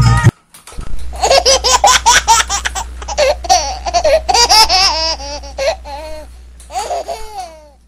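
High-pitched children's laughter in rapid repeated bursts, fading away near the end, over a steady low hum.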